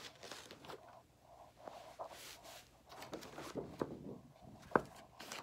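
Rustling and soft knocks of a large poster board being picked up and handled, with one sharper click near the end.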